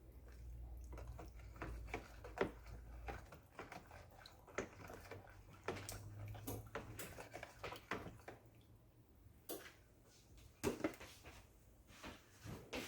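Scattered light taps and clicks of kitchen handling, irregular and quiet, as lemons are put into a pitcher of lemonade.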